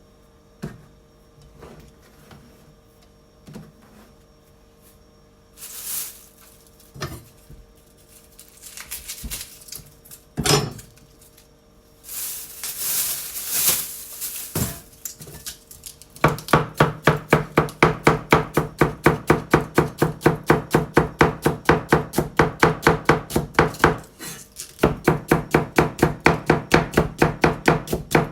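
Kitchen knife shredding cabbage finely on a cutting board: a fast, even run of cuts at about five a second starts about halfway through, breaks off briefly near the end and resumes. Before that there are scattered knocks and rustling as the cabbage is handled.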